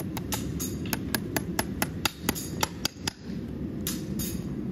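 Farrier's hammer striking in a quick, even run of about fourteen blows, roughly four or five a second, stopping about three seconds in.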